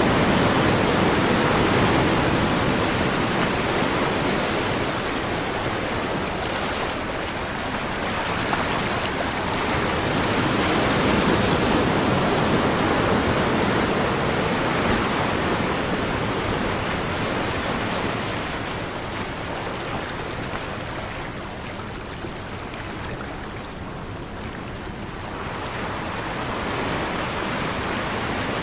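Ocean waves washing on the shore, a continuous rushing hiss that slowly swells and eases, loudest near the start and again about eleven seconds in, dropping lowest a little before the end.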